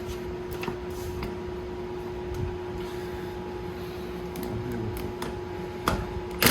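Light metallic clicks of a 14 mm wrench working the nut and bolt on a go-kart's lower control arm, over a steady hum. Two sharper metal clinks come near the end.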